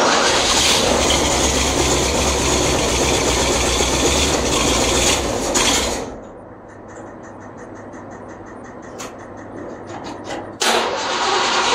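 A loud motor runs, cuts out about six seconds in, and starts up again near the end. In the quieter gap there is a steady series of light clicks, about five a second.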